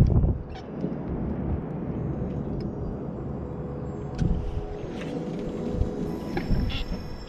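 Steady low rumble of wind on the microphone and water moving around a small boat at sea, with a few light knocks.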